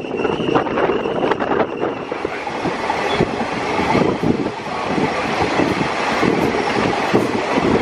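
Train running at speed along the track, the wheels clattering steadily over the rails in a dense rushing rumble, while a container freight train passes on the next track.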